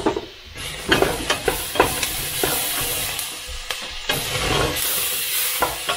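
Diced onions sizzling in a stainless steel pot while a wooden spoon stirs them, knocking and scraping against the pot. The sizzle rises about half a second in.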